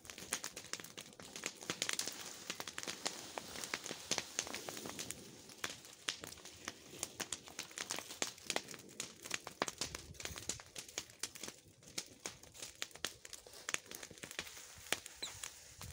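Cut leafy branches rustling, crinkling and snapping as they are pulled and gathered up by hand, with many irregular sharp crackles throughout.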